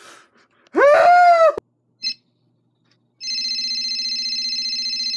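A loud, high-pitched cry that rises and falls over about a second, then a short beep, then a steady electronic tone of several fixed pitches that runs for about two seconds and stops suddenly.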